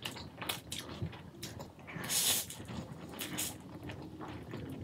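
Close-miked mouth sounds of a person eating black bean noodles: wet chewing and lip smacking throughout, with one longer, louder slurp of noodles about two seconds in.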